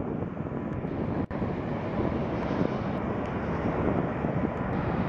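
Steady jet aircraft noise on an airport apron: a dense, even rush with a faint steady whine, broken by a very brief dropout just over a second in.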